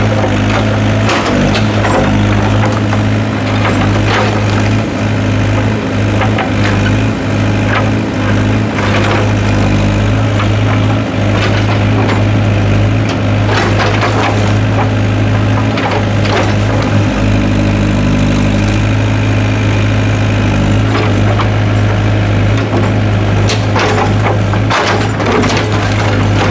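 Doosan DX55W wheeled excavator's diesel engine running with a steady drone while the machine works, with scattered knocks and clatter as the bucket digs into soil and brick rubble.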